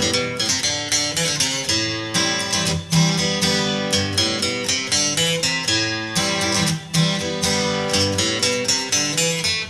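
Instrumental music led by plucked and strummed acoustic guitar, with notes struck in a steady rhythm.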